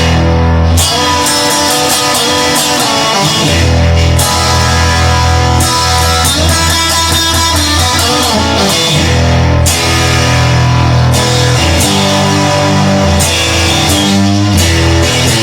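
Rock music with guitar and drums playing loudly and steadily.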